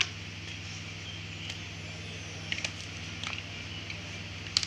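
Plastic clicks and knocks of a Samsung 101 laser toner cartridge being handled and taken apart for refilling, scattered sharp clicks with the loudest at the start and near the end. A steady low hum runs underneath.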